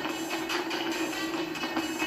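Music playing: one steady held note under a busy, rapidly clicking texture.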